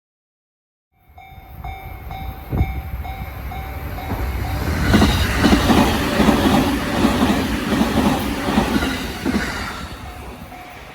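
Japanese level-crossing warning bell ringing in a steady pulse, about two strikes a second, while an electric train passes over the crossing with a loud rumble and rhythmic clatter of wheels over rail joints that builds up, peaks, then fades, leaving the bell ringing.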